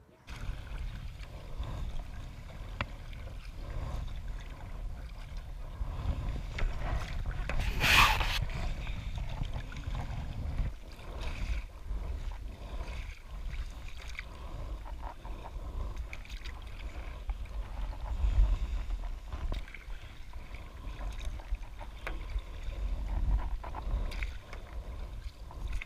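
Paddleboarding heard from a camera mounted on the board: a low wind rumble on the microphone, with water lapping and paddle strokes as the board moves. One brief, louder splash comes about eight seconds in.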